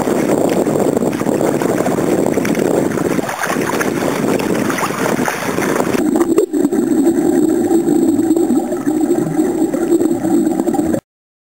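Water splashing and wind on the microphone while a kayak is paddled. About six seconds in it cuts to a muffled underwater rush with a steady low drone, which stops abruptly near the end.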